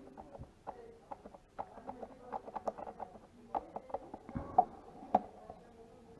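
Irregular small clicks and taps of hands and tools working on the plastic parts of a Microsoft Wireless Mouse 4000 during a button repair, several a second, with a sharper click about four and a half seconds in.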